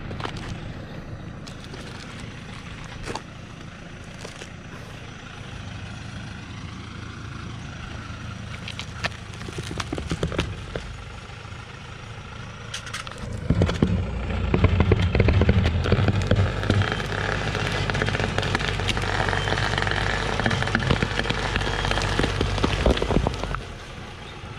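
Hoa Mai logging truck's diesel engine running steadily, then from about halfway through revving hard under load for about ten seconds as its winch cable tears a tree stump out of the ground, with scattered sharp cracks, before dropping back.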